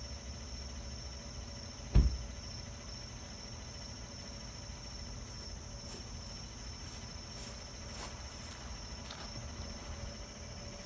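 Crickets chirping steadily over the low rumble of an idling pickup truck. About two seconds in, the truck's door slams shut with one loud thump.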